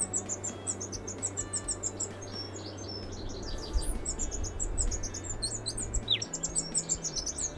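Male Eurasian blackcap singing: two quick, warbling phrases of high, varied notes, the second starting about four seconds in.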